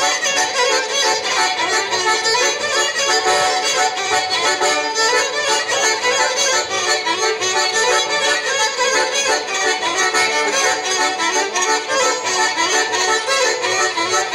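Instrumental Romanian folk dance music accompanying a round dance, a quick run of notes at an even, steady loudness.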